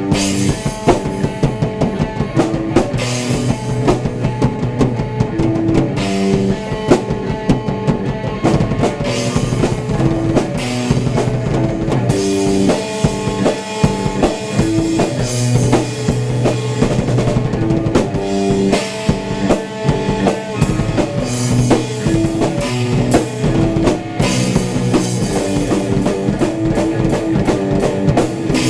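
Electric guitar through an amplifier and a drum kit playing rock together, with kick drum, snare and cymbals under a run of changing guitar notes.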